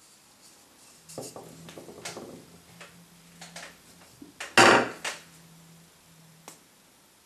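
Handling noise: hands setting down a plastic glue bottle and picking up and fitting small wooden pieces, a cup and its handle, on a wooden tabletop. A run of light knocks and clicks, the loudest a little past halfway, with one last click near the end.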